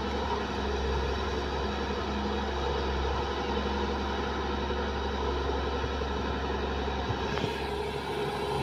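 Steady diesel drone of a Kobelco hydraulic excavator working, digging and swinging, with the dump truck waiting to be loaded idling below it.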